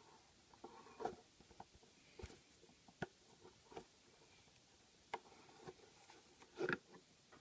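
Faint scattered clicks and knocks of a Premier wet grinder's toplock parts being handled, with the loudest knock near the end.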